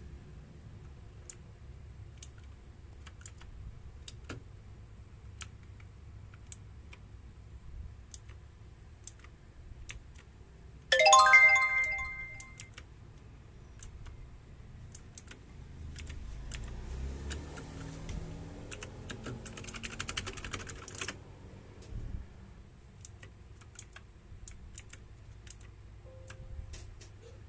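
Keys of a Rexus Legionare MX20 mechanical keyboard clicking when pressed, singly and irregularly. About 11 s in a loud bell-like chime rings and fades, and from about 16 to 21 s there is a hazier stretch with faint tones.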